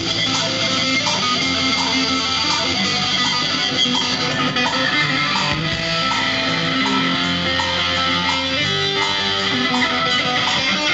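Live rock band playing an instrumental break: electric guitar and bass guitar over a steady drum beat, with no singing.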